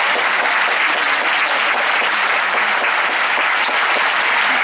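Concert-hall audience applauding steadily, a dense continuous clapping.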